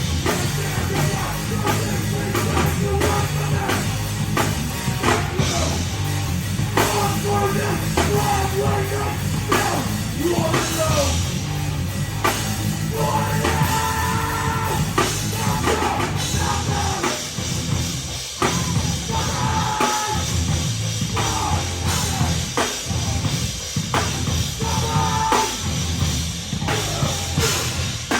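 A heavy rock band playing live and loud, with a full drum kit driving the song.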